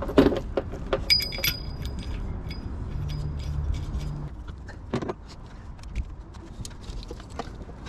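Metal tools and parts clinking and clicking while a compressor is worked on, with a ringing metal clink about a second in and a run of small irregular clicks after it. A low rumble runs underneath, with a short steady hum a few seconds in.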